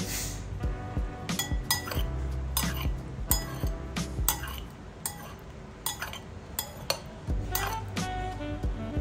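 Metal spoon clinking against a ceramic bowl in irregular strokes as cooked penne is tossed and stirred, over background music.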